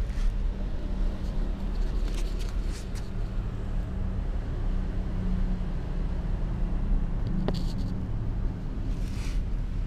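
A steady low rumble, with a few brief faint clicks and rustles about two, seven and nine seconds in.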